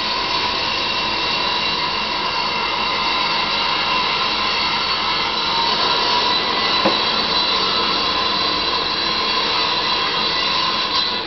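Steady mechanical whine over hiss, with several high tones held throughout and a single faint tick about seven seconds in.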